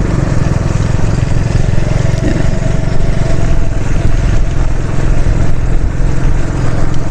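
Motorcycle engine running steadily on the move, under a loud, even rushing noise.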